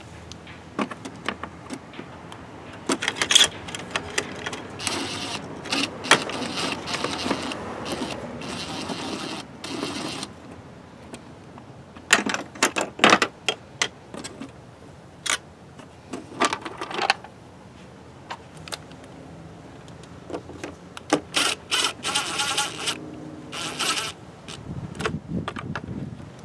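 Cordless DeWalt drill driver whirring in several short runs as it backs out the screws of a plastic engine airbox lid, the longest run near the end. Clicks and knocks of the plastic lid and tool being handled come in between.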